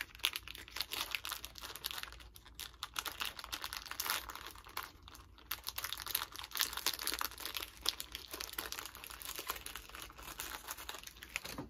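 A candy wrapper crinkling and tearing as a REESE'S Big Cup is unwrapped by hand: a dense, irregular crackle that stops at the very end.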